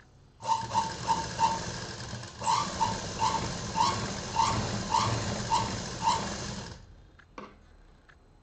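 Domestic sewing machine stitching a seam through folded cotton fabric, running steadily with a regular repeating note about three times a second. It pauses briefly about two seconds in, runs again, and stops about seven seconds in, leaving only a few faint clicks.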